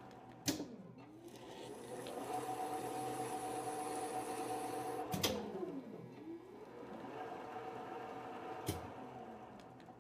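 Standard Modern lathe's spindle and gear train whining as it spins up and runs a threading pass. After a sharp click near the middle the pitch falls away and climbs again as the spindle is reversed to run the carriage back with the half-nut kept engaged. Sharp clicks of the controls come at the start, the middle and near the end.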